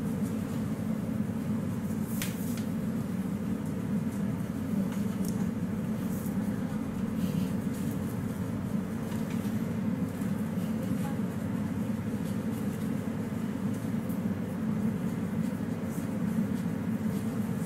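Steady low hum of background noise, even in level, with a few faint ticks.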